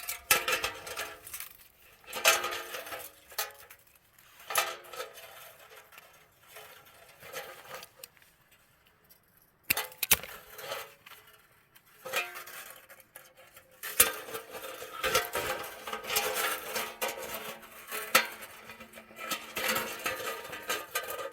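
Thin wire and a punched tin can clinking and rattling in irregular bursts of sharp clicks while a wire handle is fastened tight to the can, with a quieter lull about halfway through.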